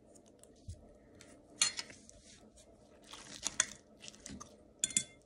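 Metal fork clinking and scraping on a plate while cutting into an omelette: a few sharp clicks and scrapes, with a cluster of them a little past the middle.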